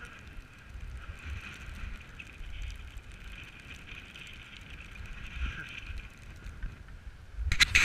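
Wind buffeting the action camera's microphone, an uneven low rumble with a faint steady whine above it. Near the end a short burst of clattering knocks.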